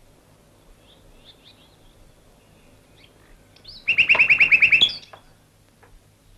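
A hearse's rear door creaking open about four seconds in: a loud, high squeaky trill of about ten quick pulses lasting about a second. Faint high chirps come earlier.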